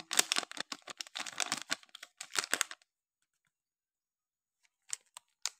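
Plastic crinkling in quick crackles while cocoa powder is shaken out over a cup of cake batter, stopping about three seconds in. A few faint clicks follow near the end.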